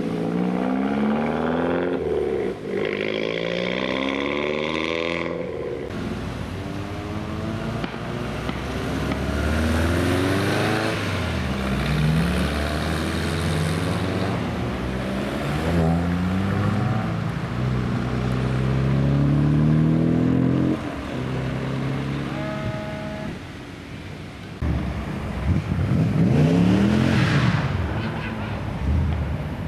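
Modified cars accelerating away one after another, engine notes climbing in pitch and dropping back at each gear change. One car passes close and loud near the end.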